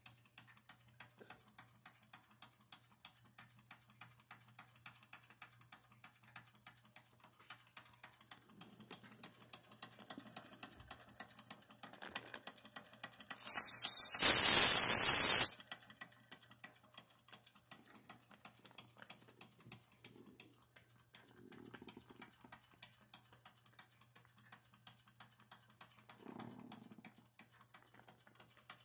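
Wilesco D11 toy steam engine running with a fast, light ticking. About halfway through, the steam whistle on top of its boiler is blown once for about two seconds: a loud, high whistle with steam hiss.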